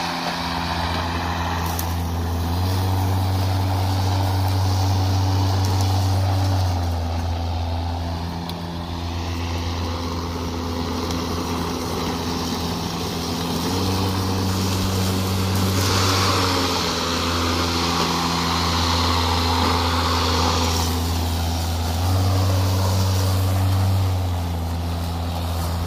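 DeWalt 20V brushless battery lawn mower cutting thick grass: a steady electric motor hum whose pitch steps up and down several times as the load changes. A louder hiss of grass being cut swells about two thirds of the way in.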